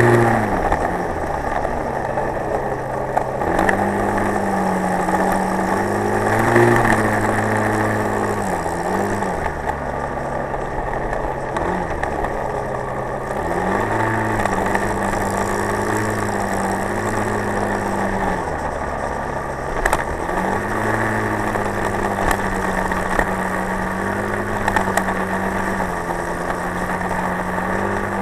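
Motorcycle engine running on the move, its pitch holding steady for stretches and dipping and rising again several times as the rider eases off and speeds up, over a steady rush of wind and road noise.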